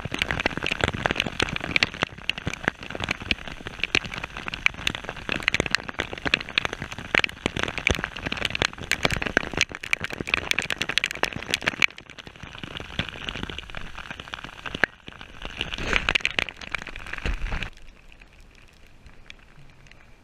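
Rain falling on open water, a dense crackle of drops hitting the surface. It drops away sharply to a faint hiss near the end.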